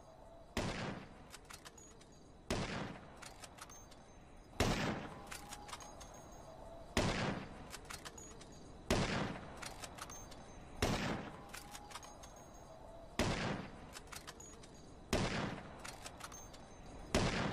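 Rifle gunshot sound effect repeating about every two seconds, nine shots in all. Each shot dies away over about half a second and is followed by a few lighter clicks.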